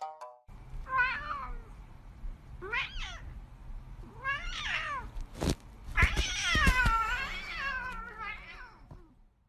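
House cat meowing four times in wavering, drawn-out calls, the last one the longest. There is a single thump about halfway through.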